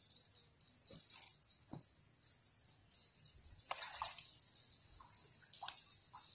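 Water dripping and trickling off a bamboo-framed lift net as it is raised out of the water, faint, with a few louder splashes from about four seconds in. A steady high chirping repeats about five times a second in the background.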